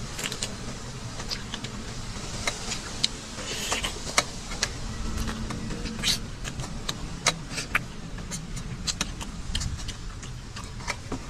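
Eating sounds from a bowl of pork-knuckle rice noodles: irregular small clicks and ticks of chopsticks, bowl and chewing, over a steady low hum.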